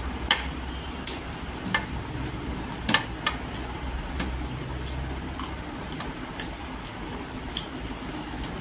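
Close-up eating sounds from eating rice and chicken curry by hand: sharp wet lip smacks and finger-licking clicks, most of them in the first few seconds, with fingers scraping a plate. A low steady hum runs underneath.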